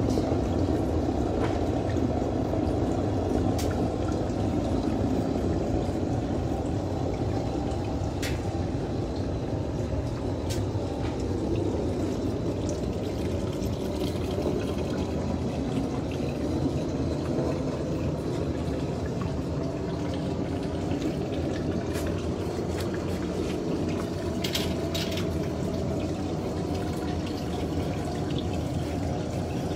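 Gas burner of a portable mini glass furnace firing with a steady, low rushing noise, with a few faint clicks over it.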